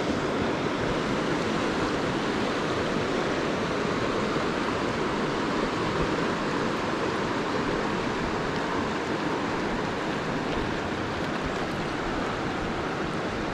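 Steady rush of a fast river running over rocks through a riffle of pocket water.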